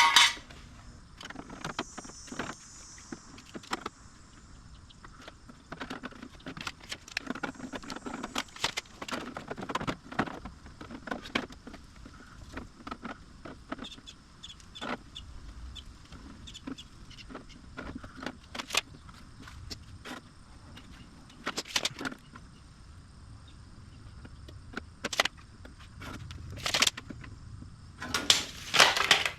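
Scattered metallic clicks, clinks and knocks of car body parts and hand tools being handled and fitted, irregular and short, with a few louder clunks near the end.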